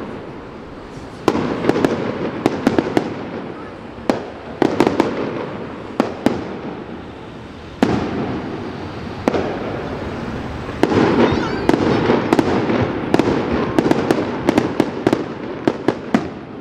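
Aerial firework shells bursting in a rapid display: sharp bangs in clusters every second or two, each followed by a fading wash of crackle and echo.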